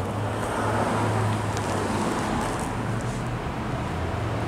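Steady road-traffic noise with a constant low engine hum, swelling slightly about a second in.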